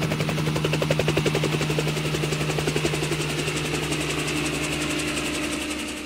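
Steady machine-like drone with a fast, even pulsing beat over a low steady hum, fading out near the end.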